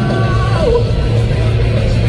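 Live rock band playing at full volume, with electric guitars over a dense, steady low end.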